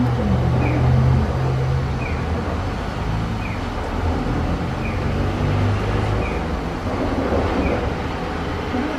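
Steady low hum inside a stationary Sapporo City 240-class streetcar, with a short high chirp repeating about every one and a half seconds.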